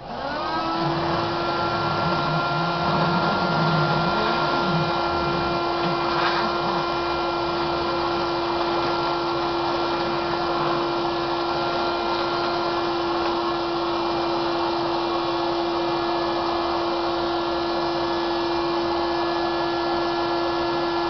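An electric blower switches on and quickly spins up, then runs at a steady pitch with a constant whine as it pushes air through a hose to inflate a latex weather balloon.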